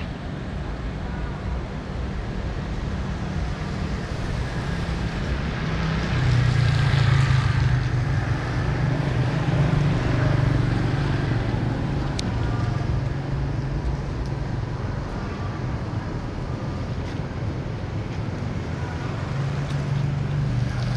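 Street ambience on a wet city street: traffic on wet road, a steady low rumble under an even hiss, growing louder about six seconds in and easing off again later.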